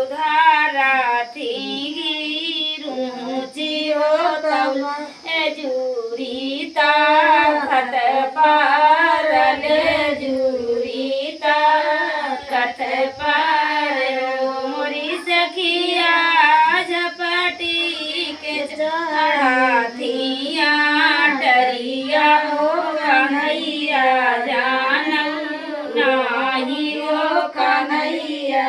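Women's voices singing a sohar, the traditional North Indian folk song sung to celebrate a birth, in a high, wavering, continuous melody.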